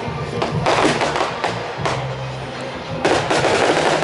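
Fireworks going off in a series of bangs and crackles, the heaviest cluster about three seconds in, over music with sustained low notes.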